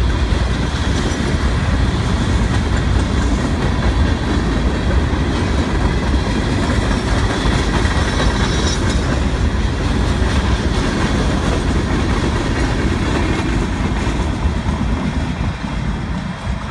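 Freight train of open hopper cars rolling past close by: a steady heavy rumble with steel wheels clacking over the rail joints, easing slightly near the end.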